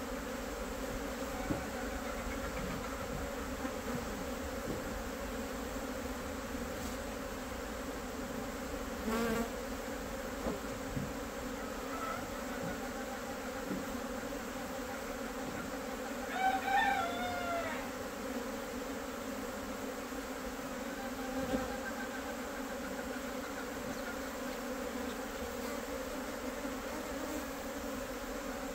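Steady buzzing drone of a swarm of Korean native honeybees (Asian honeybees) flying out of and around their box hive, the sound of a colony in the middle of swarming. A little past halfway a rooster crows once.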